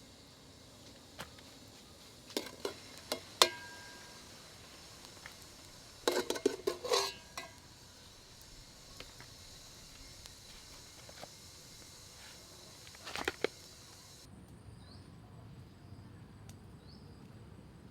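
Scattered knocks and clinks of hard objects being handled, one ringing briefly, with a short clatter about six seconds in and another near the end. Behind them is a steady high hum of insects, which changes abruptly to fainter chirping about fourteen seconds in.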